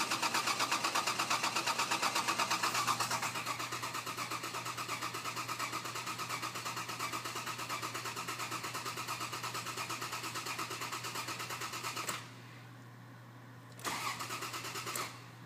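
Toyota FJ Cruiser's 1GR-FE V6 cranked over on the starter with its EFI relay pulled, so it turns over with even, rapid pulses but does not fire. One long crank of about twelve seconds, then a short second crank of about a second near the end. The cranking primes the engine's oil pressure before starting.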